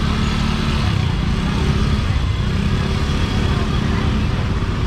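Busy street ambience: a steady low rumble of motor traffic, with faint voices in the background.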